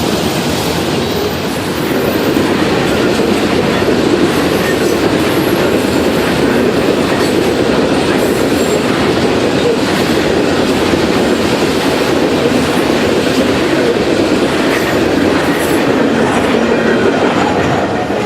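Freight cars of a passing train rolling by close at hand, wheels clacking steadily over the rail joints, with faint high wheel squeal; the sound eases off near the end.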